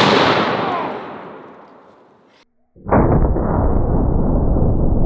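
The echo of a 700 BMG rifle shot rolling away across the range and fading over about two seconds, then cut off abruptly. About three seconds in, a loud, steady low rumble starts and carries on.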